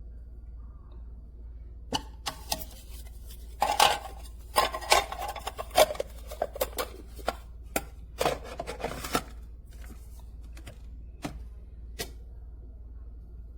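Irregular knocks, taps and clinks of coffee-making gear being handled, busiest from about two to nine seconds in, with a few last taps near the end.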